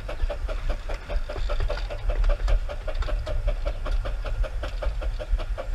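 Miniature 15-inch-gauge Pacific steam locomotive Green Goddess running at low speed, with a steady quick beat of about six pulses a second over a low rumble of the moving engine.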